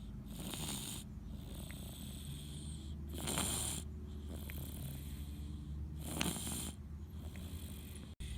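Snoring: a loud, breathy snore about every three seconds, with quieter breaths in between.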